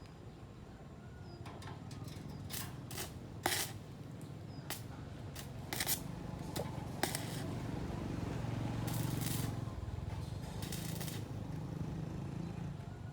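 Scattered sharp metal clinks and knocks over a low steady hum, with two short hissing bursts near the end.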